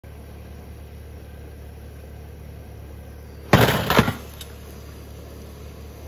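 A sudden loud clatter lasting about half a second, with two hits close together and a faint click just after, over a steady low hum.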